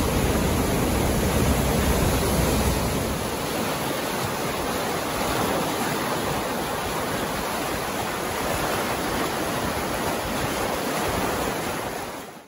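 Waterfall and swollen creek water rushing steadily, a full even roar of whitewater, deeper in the first few seconds, then cutting off abruptly at the very end.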